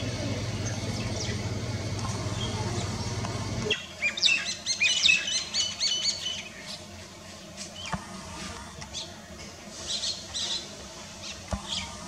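A steady low hum cuts off abruptly almost four seconds in. Then an Indian grey hornbill gives a rapid series of shrill, squealing calls for about two and a half seconds, followed by a few scattered calls near the end.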